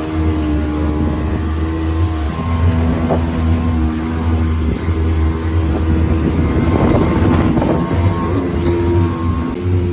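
Boat engine running on the lake, steady, its pitch dropping slightly about two seconds in and rising again near the end.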